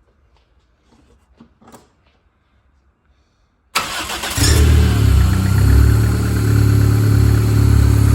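Toyota 4E-FTE 1.3-litre turbocharged four-cylinder, just rebuilt with forged internals, cranking briefly and catching almost four seconds in on its first start-up, then running steadily at idle. A few faint clicks come before it.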